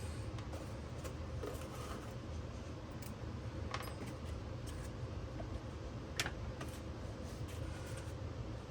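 A few light clicks and taps over a steady low background hum.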